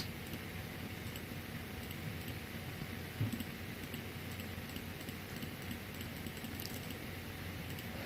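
Quiet room tone: a steady low hum with a few faint clicks, and a soft bump about three seconds in.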